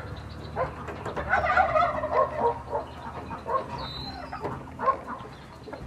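Turkey gobbling: a run of several calls from about half a second in until near the end.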